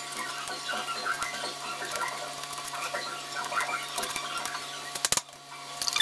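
Metal spoon scraping and pressing wet watermelon-and-garlic pulp against a plastic mesh sieve: quick, irregular scratchy ticks, with one sharp knock about five seconds in.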